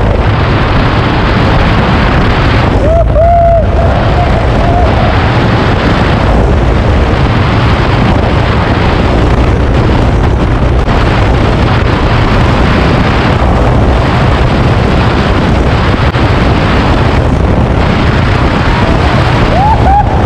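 Loud, steady wind rush buffeting the microphone of a motorcycle riding at highway speed, around 80 to 100 km/h, with the bike's engine running underneath.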